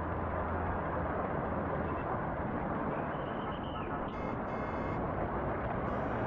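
Steady engine and road noise inside a moving bus. A faint high tone comes about three seconds in, and short high buzzing sounds come around four seconds and again near the end.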